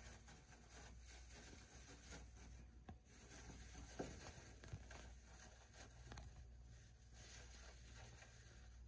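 Faint rustling and scratching of a hamster digging through loose bedding, with a few small clicks, the sharpest about four seconds in.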